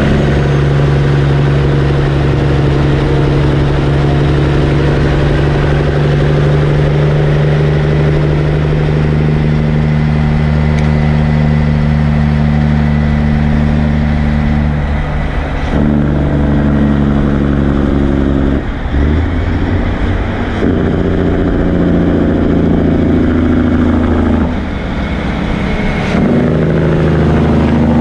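Heavy truck's engine running loud and steady up close, its note stepping to new pitches several times, with brief dips in level about 19 and 25 seconds in.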